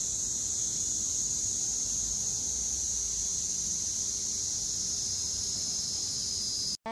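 Cicadas buzzing in one steady, high-pitched drone that sinks slightly in pitch near the end.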